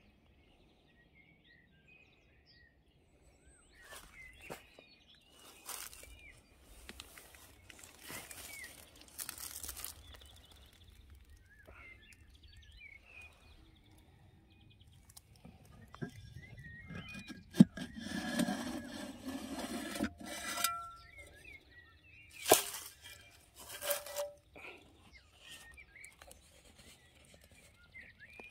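Small birds chirping now and then, with bursts of close rustling and crunching over dry leaves. The rustling is loudest a little past halfway, and two sharp knocks stand out.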